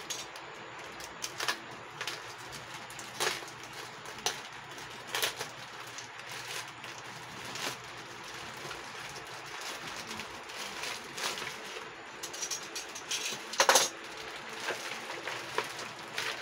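Plastic courier mailer being torn open by hand: crinkling and rustling plastic with scattered sharp clicks and snaps, the loudest snap about three quarters of the way through.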